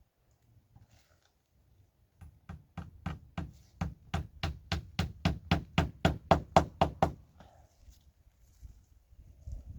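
A hammer striking a nail into wood, a quick even run of about twenty-odd blows at roughly five a second, getting louder toward the end and stopping about seven seconds in.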